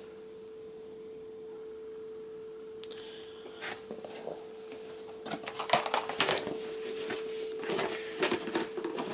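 Flour being measured out with a tablespoon from a plastic tub into a plastic mixing bowl: a few scrapes and taps about three seconds in, then a busier run of clicks and taps through the second half. A steady hum runs underneath throughout.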